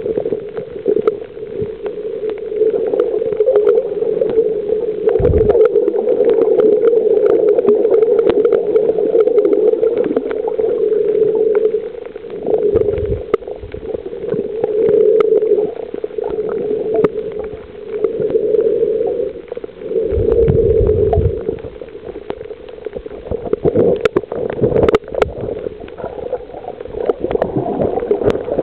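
Muffled underwater sound picked up by a camera below the surface: a steady hum with gurgling and a few low thumps.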